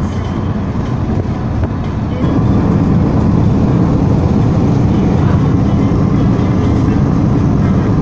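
Steady low rumble of a moving vehicle, getting louder about two seconds in.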